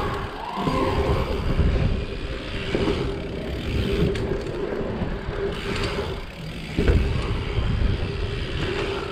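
Bike tyres rolling over the ramps with wind rushing on the camera microphone, a steady rumble that gets louder about seven seconds in.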